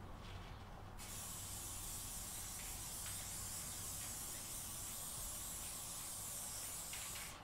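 Aerosol can of spray adhesive hissing in one long, steady spray onto the back of the carpet and the plywood, starting about a second in and stopping just before the end.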